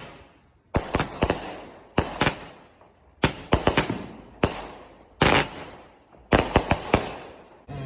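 Consumer fireworks going off in a series of about six bursts roughly a second apart. Each is a sharp bang followed by a few more cracks and a fading hiss.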